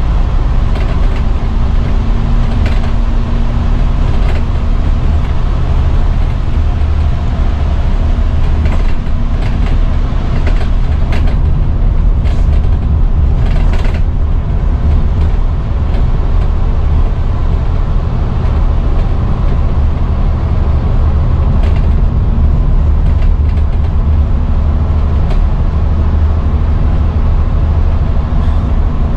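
Scania N230UD double-decker bus's five-cylinder diesel engine running under way, heard from inside the passenger saloon as a steady low drone mixed with road noise. Short rattles and clicks from the bus body and fittings come through it, bunched between about ten and fourteen seconds in.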